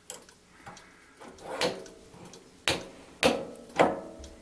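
Sharp metal clicks from a hex key and tool holder being handled on a lathe's quick-change tool post: a soft knock, then three crisp clicks about half a second apart.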